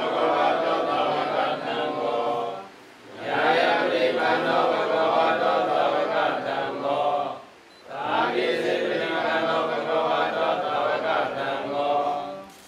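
A group of Buddhist monks chanting in unison, men's voices in long steady phrases with short breath pauses between them: about three phrases.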